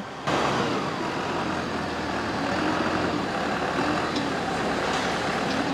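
Steady din of a truck chassis assembly hall: an even noise of machinery and air, with a few faint clicks.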